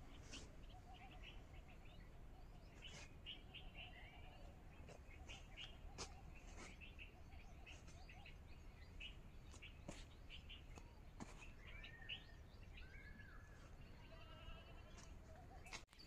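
Near silence with faint, scattered bird chirps and short calls.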